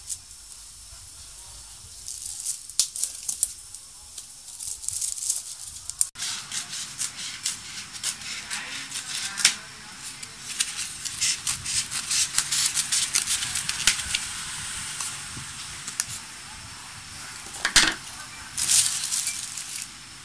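Thin plastic lid being pressed on and peeled off a small sauce cup in a foam takeaway box: crinkling and crackling plastic with many sharp clicks, busiest from about a third of the way in, with single loud snaps about halfway through and near the end.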